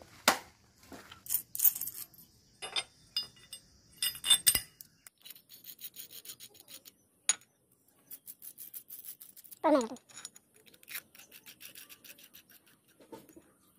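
Small metal clicks and clinks of steel sleeve-type expansion anchor bolts being handled and fitted through the holes of a steel base plate, with one louder brief scrape about ten seconds in.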